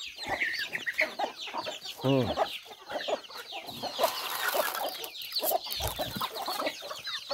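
A flock of chickens calling together: many chicks peeping in quick short falling notes over hens clucking, with one louder, lower call about two seconds in.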